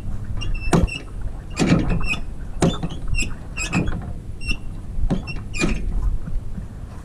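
Footsteps and camera handling noise as someone walks on grass, a sharp knock about once a second, with short high-pitched chirps in between and a steady low rumble underneath.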